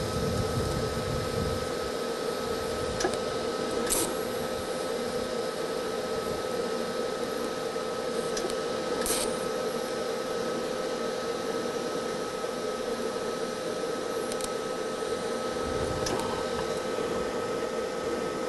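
TIG welding arc on a thin steel car body panel, a steady hiss with a constant hum, as filler rod is added to fill a trim hole. Two short sharp crackles come about four and nine seconds in.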